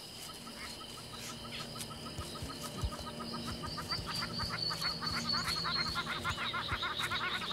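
Birds calling in the bush: a fast run of repeated chirps, about seven or eight a second, growing louder from about three seconds in, over a steady high insect drone.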